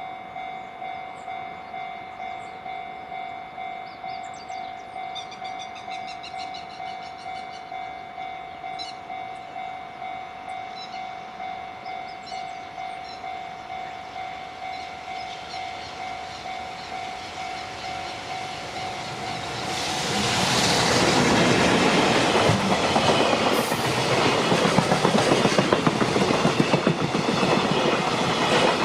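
A level-crossing alarm ringing steadily, about two dings a second. About twenty seconds in, a train arrives and passes close by, its loud running noise and wheel clickety-clack drowning out the alarm.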